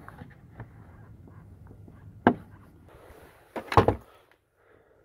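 Hard plastic clicks and handling rattle as a bulb socket is twisted out of a car tail light housing: small ticks, a sharp click about two seconds in, and a louder knock and rattle near four seconds.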